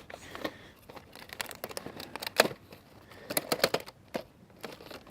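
A small flashlight box being opened and handled by hand: irregular crinkling and rustling of packaging with scattered sharp clicks and taps.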